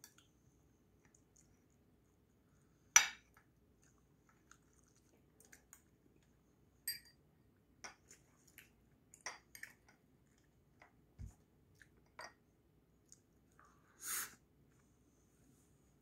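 Metal chopsticks and a spoon clicking against ceramic bowls and a plate while picking at grilled fish, with faint chewing. The sharpest click comes about three seconds in, a scatter of lighter clicks follows, and a brief softer noise comes near the end.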